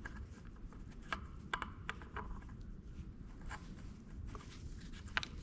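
Faint, scattered clicks and light taps of metal parts being handled as an oil pump and its line are fitted to an engine, over a low steady hum.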